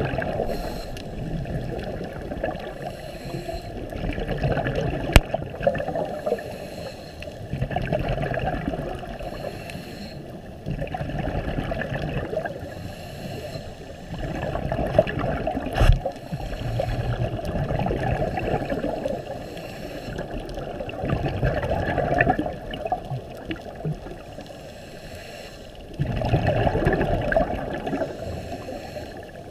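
Underwater sound heard through a camera's waterproof housing: a scuba diver's exhaled bubbles gurgling, swelling and fading every few seconds with each breath.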